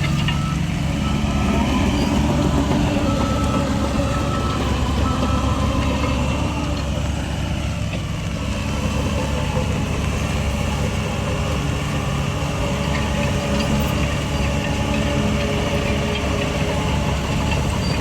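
Heavy diesel engine of earth-moving machinery running steadily with a low drone, and a faint higher whine that comes and goes in the first few seconds.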